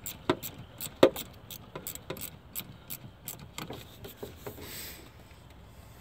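Ratchet wrench clicking in quick, even strokes as a bolt on the AC line fitting is run down snug, with two louder knocks in the first second. The steady clicking stops a little past halfway, leaving a few scattered knocks.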